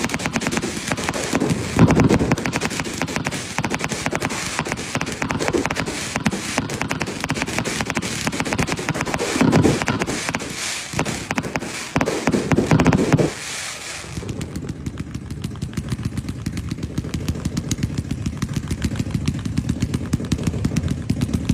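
Firecrackers going off in a rapid, unbroken string of cracks, with louder bursts about 2, 9 and 12 to 13 seconds in. At about 14 seconds the crackle turns thinner and duller but keeps going just as fast.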